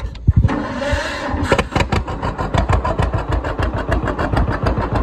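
1952 John Deere 60's big two-cylinder engine being started: the electric starter cranks it, it catches about a second and a half in, then settles into a steady run of rapid, even firing beats.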